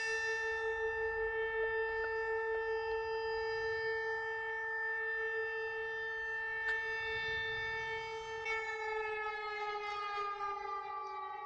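Civil-defence air-raid siren sounding one steady held tone, then starting to wind down and slowly fall in pitch about eight and a half seconds in.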